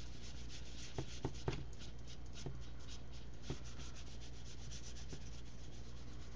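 Paintbrush strokes brushing gesso onto the edge of a canvas: a scratchy rub made of many quick strokes, with a few light knocks in the first few seconds.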